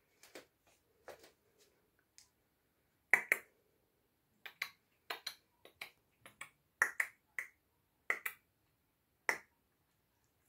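Finger snaps: a string of short, sharp snaps, many in quick pairs, repeated at irregular intervals of about half a second to a second, the loudest about three seconds in.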